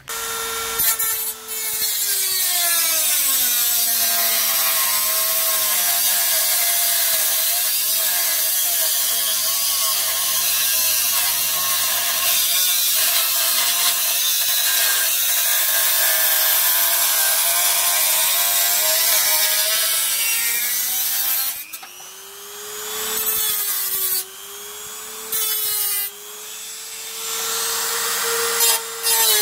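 Handheld rotary tool with a thin cut-off wheel grinding into the sheet-metal fender to trim the snorkel hole: a high whine with a grinding rasp, its pitch sagging as the wheel bites under load. Near the end it eases off and stops briefly a couple of times, and the whine climbs back up.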